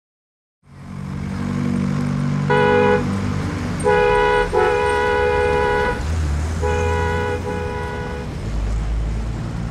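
Car driving with steady engine and road noise, and a vehicle horn honking four times, the last two honks long.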